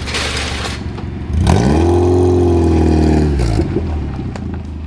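Subaru flat-four engine in a swapped VW Beetle accelerating away. A short rush of noise at the start, then the engine revs up sharply about a second in, holds high for a couple of seconds, and drops back near the end.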